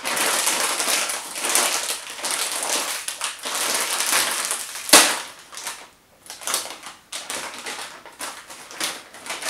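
A crinkly foil chip bag is torn open and rustled for about five seconds, ending in one sharp crack. After that comes the softer, irregular crunch of a thin, spicy chip being chewed.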